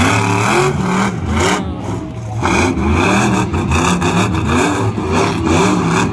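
Monster truck engine revving, its pitch rising and falling over and over as the truck spins donuts in the mud.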